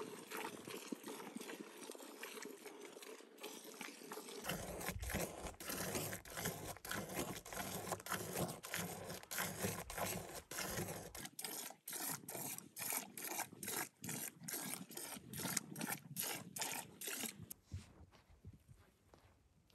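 Cow being hand-milked into a galvanized metal pail: rhythmic squirts of milk into the foam, about two to three a second, stopping near the end.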